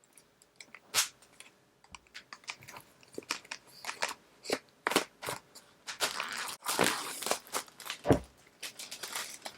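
Packaging of an iPad Air being opened by hand: the wrapping tearing and crinkling, with scattered clicks and scrapes of the cardboard box, busier in the second half.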